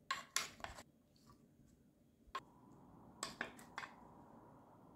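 Light clicks and knocks of seasoned cauliflower florets and carrot slices dropping into a glass baking dish, scooped from a bowl with a wooden spoon. The sounds come in a cluster at the start, once more about two seconds in, and in another cluster about three seconds in.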